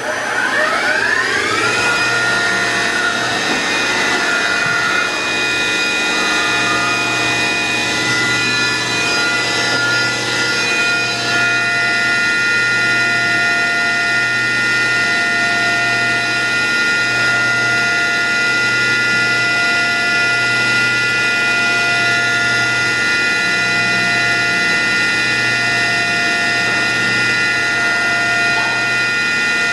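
Fadal VMC6030 HT CNC vertical mill's 10,000 rpm spindle spinning up with a rising whine over the first two seconds, then running at speed with a steady high-pitched whine. A lower tone switches on and off about every two seconds in the second half.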